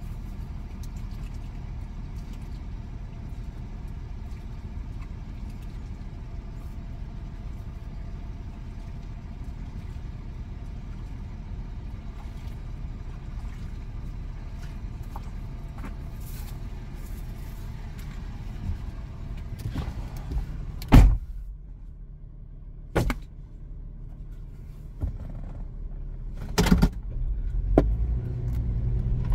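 Steady low rumble of a running vehicle engine. About three-quarters of the way through, the rumble drops away and a few sharp knocks follow.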